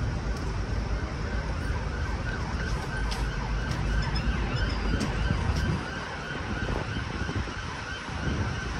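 City street traffic rumble with an emergency-vehicle siren sounding over it. The low rumble eases about six seconds in.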